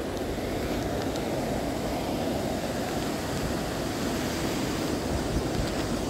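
Steady rushing of a mountain river and its small waterfalls.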